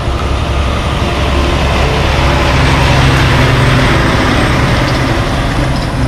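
Diesel semi-truck pulling a tanker trailer as it drives past close by: a low engine hum and tyre roar that grow louder toward the middle of the pass and ease slightly after.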